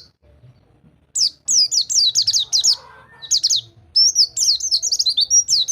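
White-eye (pleci) singing fast rolling phrases of high, steeply falling notes, about six a second: the rapid 'rol tembak' song used as master song for caged white-eyes that will not sing. The song starts about a second in, breaks briefly near the middle, then runs on in a denser burst.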